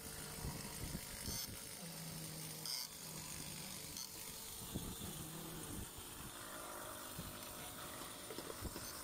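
Spanner working the nuts on the lining bolts of a ship's anchor windlass brake band: scattered metal clicks and knocks, with a low steady hum that comes and goes.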